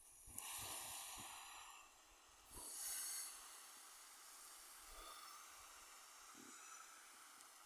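Campfire embers being doused: two loud hissing rushes of steam as water hits the coals, about a second apart, then a fainter sizzle that lingers with a few small pops.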